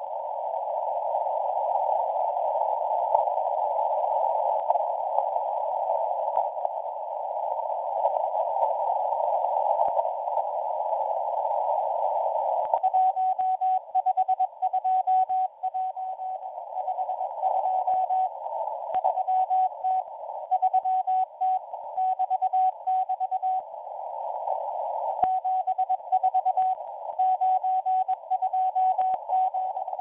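M01 numbers station's Morse code received on a shortwave radio. For the first dozen seconds only static hiss comes through the narrow filter, then a steady single tone is keyed on and off in dots and dashes over the static, sending number groups. The keying pauses for about a second and a half near the end.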